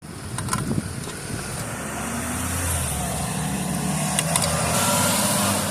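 A road vehicle passes by, its engine and tyre noise building to a peak near the end. Wind buffets the microphone, with a few sharp knocks.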